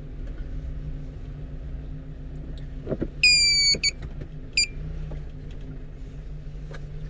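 One-ton truck's engine idling steadily. About three seconds in there is a click, followed by a loud high tone of about half a second, falling slightly in pitch, and a shorter tone a moment later.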